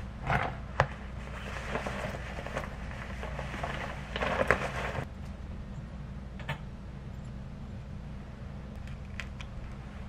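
Cloth rustling in a few short bursts as a drawstring bag is handled and slung on over a wool coat, with a few light clicks and a steady low hum underneath.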